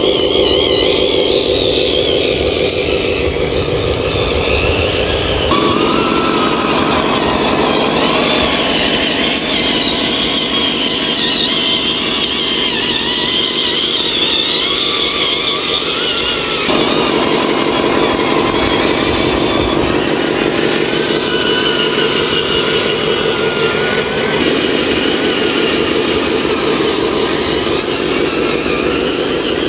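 Small electric motor and gearbox of a miniature RC truck running with a steady buzzing whine. Its pitch and tone change abruptly about 6 s and again about 17 s in.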